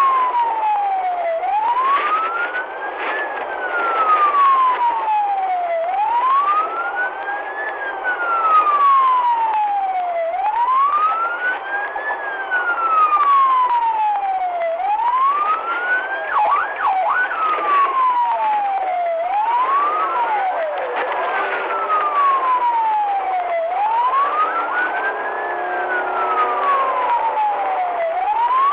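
Police car siren on a slow wail, its pitch rising and falling about once every four to five seconds, with a short run of quick yelps about sixteen seconds in. Fainter sweeps of other sirens overlap it over a steady road noise.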